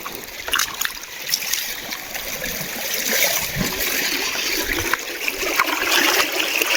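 River water running and trickling over stones, growing louder from about halfway, with a few small splashes.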